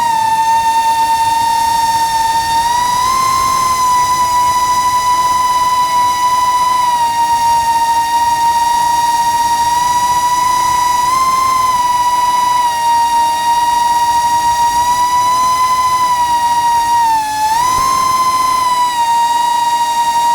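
FPV quadcopter's brushless motors whining at speed, a steady high-pitched tone that rises slightly a few times and dips briefly with a quick recovery near the end as the throttle changes.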